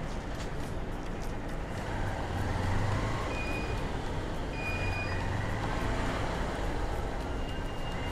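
Street traffic noise with a vehicle engine running nearby, its low hum swelling twice. Two short, faint high beeps come a little after the middle.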